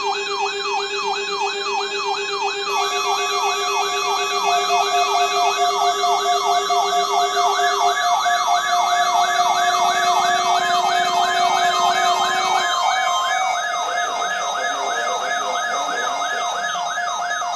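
Electronic siren in a fast yelp, its pitch sweeping up and down about three to four times a second, layered with other wavering siren tones and a steady low hum-like tone that drops out about halfway through.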